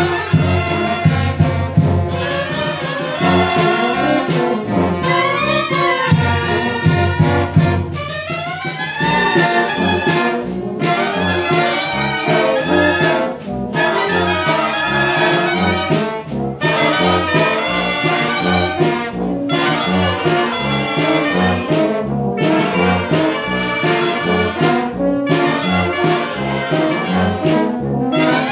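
Mexican wind band of clarinets, saxophones and trumpets playing a lively tune together over a steady pulsing low part, with quick rising runs in the upper voices.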